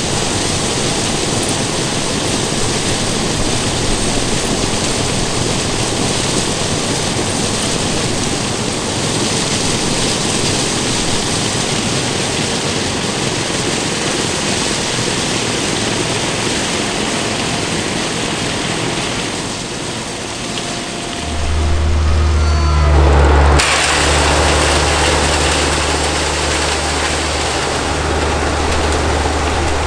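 Crushed-stone ballast pouring and rattling through a conveyor chute on a ballast cleaning machine, a steady rush of stone over machinery. About two-thirds of the way in, a low steady diesel-engine drone comes in under the rush of the working train.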